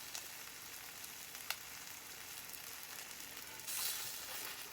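Quesadillas sizzling in a hot pan: a steady frying hiss with a few small pops, swelling louder for a moment near the end.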